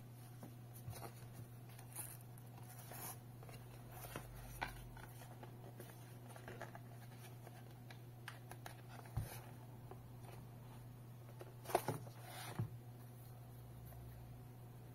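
Handling noise as a tablet is slid out of its folio cover and turned over in the hands: scattered light clicks, taps and rubbing of plastic against the tablet, with a short cluster of louder clicks toward the end. A steady low hum runs underneath.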